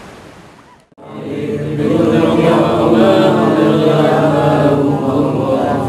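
A group of voices chanting a prayer together in unison, starting about a second in and swelling to full strength. Before it, a faint outdoor hiss fades and cuts off.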